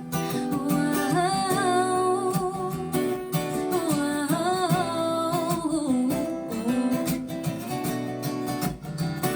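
Recorded pop-folk song: acoustic guitar playing under a woman's voice singing a wordless, wavering melody for a few seconds, between verses.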